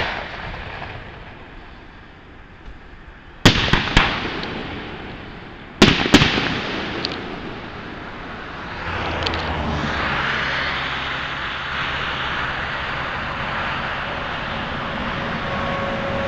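Aerial fireworks shells bursting: a bang at the start, then two pairs of sharp booms about three and a half and six seconds in, each trailing off. From about nine seconds in, a steady rushing noise takes over.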